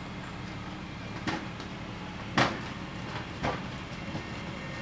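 A vehicle engine idling steadily, with three sharp knocks about a second apart; the loudest knock comes about halfway through.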